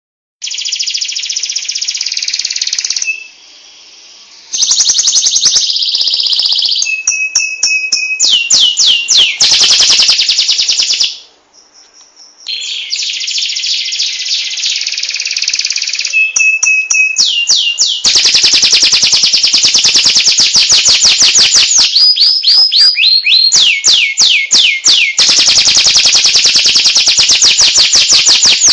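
Domestic canary singing loudly and continuously: long, fast trills and rolls, and in the second half runs of rapid repeated notes that each sweep downward in pitch. The song breaks off briefly twice, about three seconds in and again near the middle.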